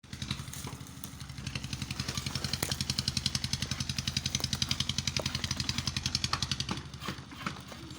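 A machine running with a rapid, even pulse, about ten beats a second, building after the first second or so and fading near the end.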